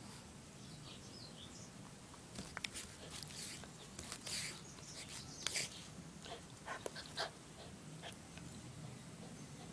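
Toy poodle pouncing and nosing at an insect on a lawn: a run of short sniffs and scuffling rustles in the grass, bunched in the middle few seconds.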